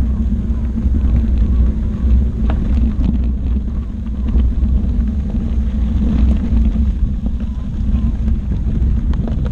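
Steady low rumble of wind on the microphone and the tyre rolling over a gravel trail, riding a Gotway ACM16 electric unicycle, with a few faint clicks of stones.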